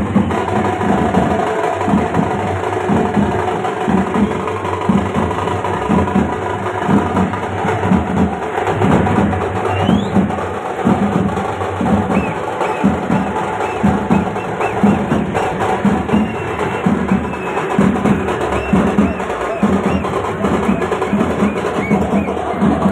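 Background music with a steady, evenly repeating percussion beat under a melody.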